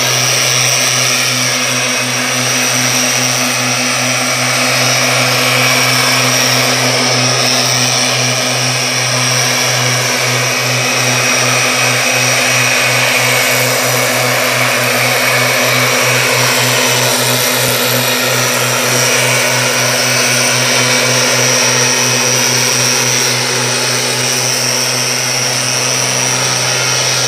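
STIHL backpack mist blowers' two-stroke engines running steadily while spraying herbicide on grass: a loud, even engine drone with a high whine over it and a slow regular throb in the hum.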